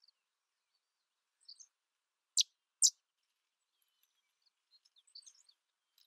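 Sedge wren calling: two loud, sharp, dry chip notes about half a second apart, then a faint run of short high notes.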